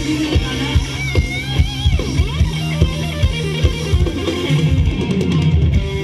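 Live band playing Thai ramwong dance music with a steady, even beat and held bass notes.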